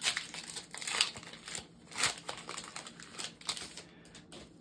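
Pokémon card booster pack's foil wrapper crinkling as it is torn open by hand, in several sharp rustles, the strongest at the start and about one, two and three and a half seconds in, dying away near the end.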